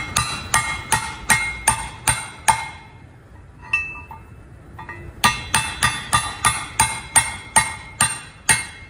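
Light, even hammer taps on a metal bushing driver, about two or three a second and each with a short metallic ring, driving a fiber bush into the guide-pin bore of a truck air disc brake caliper. A run of about seven taps, a pause of a few seconds, then about ten more.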